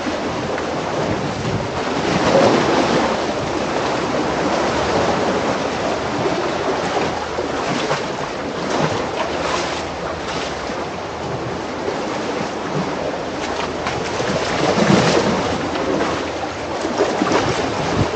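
Surf washing on the shore with wind buffeting the microphone: a steady rushing noise that swells and eases, strongest about two seconds in and again near the end.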